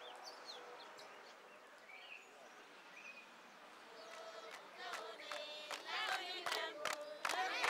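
Faint outdoor quiet with a few short bird chirps, then about five seconds in a group of voices starts singing together, with sharp percussive hits among them, growing louder toward the end.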